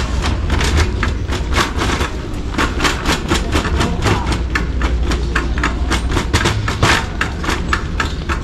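Shopping cart being pushed across a hard store floor: a steady low rumble from the rolling wheels with a fast, irregular rattle and clatter from the cart.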